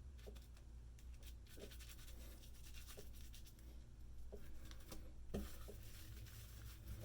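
Faint soft scratching and rubbing of fingers working shaving lather into a stubbly beard, with scattered light ticks and one slightly louder tick about five seconds in.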